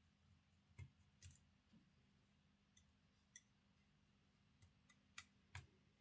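Faint, irregular small clicks and taps, about seven of them, from the small plastic and metal parts of an OO gauge model locomotive being handled and taken apart, over a low background hum.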